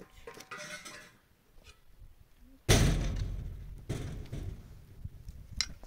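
A single loud, sudden thud about three seconds in that dies away over a second or so, followed by a few lighter knocks and clicks.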